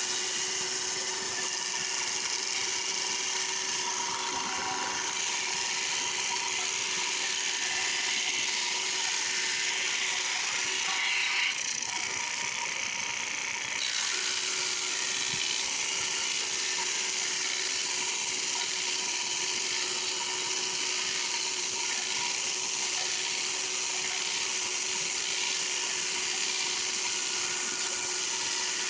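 Drum sander running with a shop vac pulling dust from it, a steady motor whine and hiss as the sanding drum works over a white ash board.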